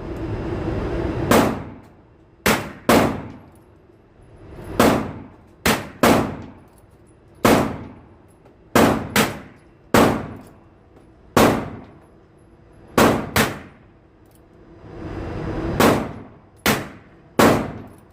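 Pistol shots fired at an irregular pace, about sixteen sharp reports, several in quick pairs less than half a second apart.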